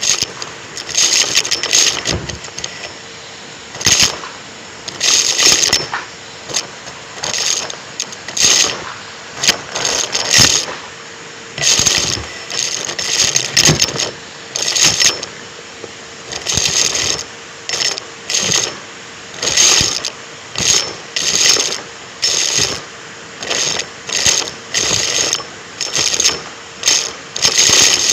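Numatic James cylinder vacuum cleaner running with a steady hum, broken by repeated short bursts of crackling and rattling as it sucks up crunchy debris.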